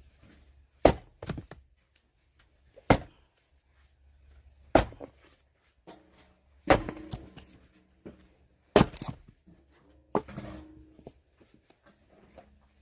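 Axe strikes splitting firewood logs: about six hard, sharp blows at roughly two-second intervals, some followed by a short clatter of wood.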